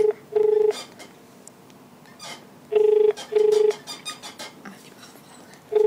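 Telephone ringback tone heard down the line while a call waits to be answered: a double ring, two short steady tones close together, repeating about every three seconds.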